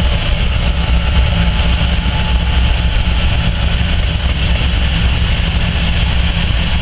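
Covered hopper cars of a freight grain train rolling past, a loud, steady rumble of steel wheels on rail.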